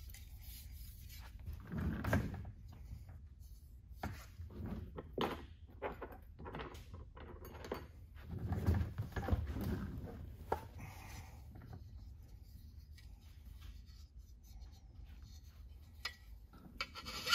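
Scattered light knocks and clicks of aluminium sheet-metal parts and hand tools being handled and set down on a workbench.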